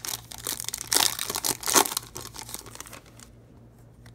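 Foil wrapper of a Topps Chrome baseball card pack being torn open and crinkled, a dense rapid crackling for about three seconds that stops.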